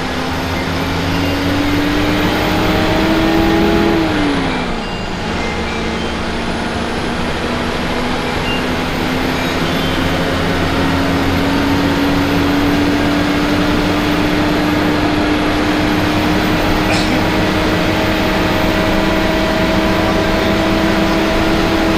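Bus engine and road noise heard from inside the moving bus. The engine's pitch rises as it accelerates, drops sharply about four seconds in, then climbs slowly and steadily again.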